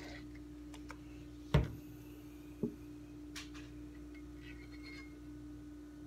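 Painting tools being handled on a work table: a sharp knock about one and a half seconds in, a lighter knock a second later, then a faint click, over a steady low hum.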